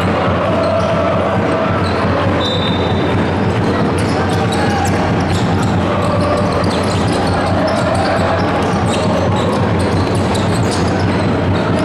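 Indoor men's basketball game: the ball bouncing on the court amid steady crowd chatter, with many short sharp sounds from the play.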